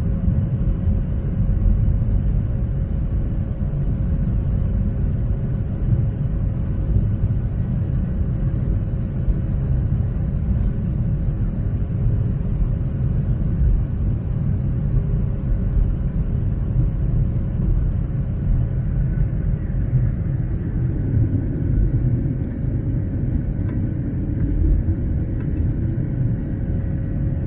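Airliner heard from inside the cabin: a steady low rumble of engines and wheels on the ground, with a faint steady hum. About twenty seconds in the rumble grows fuller as the plane starts its take-off.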